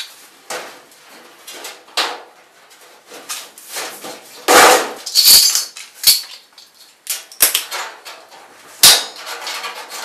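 Galvanized sheet-metal duct sections clanging and knocking as they are handled and fitted into place, sped up. There is a scatter of sharp metallic bangs, the loudest about halfway through and again near the end.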